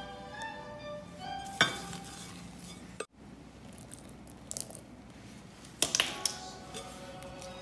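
A spatula stirring and scraping thick royal icing in a glass bowl, with a few sharp clinks of the spatula against the glass, the loudest cluster about six seconds in.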